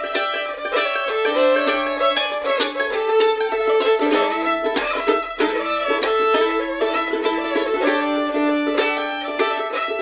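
Fiddle and mandolin playing an old-time tune together: a bowed fiddle melody over quick, steady mandolin picking.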